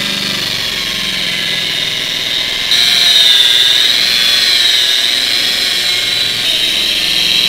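Electric rotary polisher with a foam pad running steadily on car paint, buffing compound into the finish: a steady motor whine whose pitch wavers slightly as it works, getting louder about three seconds in.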